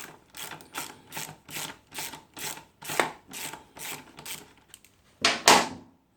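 Socket ratchet clicking steadily, about four to five clicks a second, as it undoes the 14 mm rear brake caliper stay-bar bolt. Two louder metal knocks come near the end.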